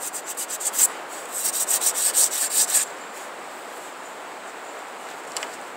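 Sandpaper on a rigid wooden block, 120 grit, rubbed in quick short strokes along the edge of a rawhide-backed wooden bow, feathering the rawhide edge. The scraping stops about three seconds in.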